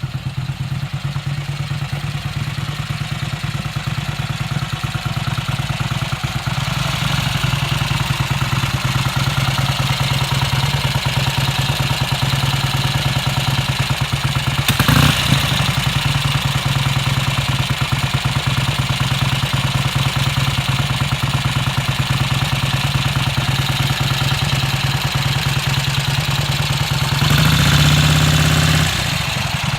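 Vincent-HRD Series A 1000 V-twin motorcycle engine idling with a steady, even beat. There is a short sharp burst about halfway through, and near the end the engine is briefly revved a little higher and louder before settling back to idle.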